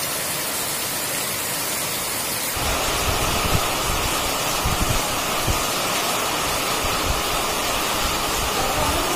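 Rain falling in a steady hiss. About two and a half seconds in it grows louder and fuller, with irregular low thumps.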